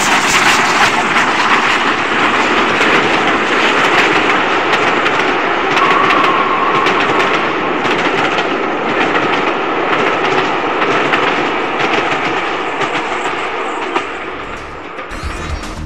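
HO-scale model train rolling by on the track: a steady running rumble with frequent clicks of the wheels over the rail joints and a brief high squeal about six seconds in. The sound fades near the end as the train recedes, and music starts just before the end.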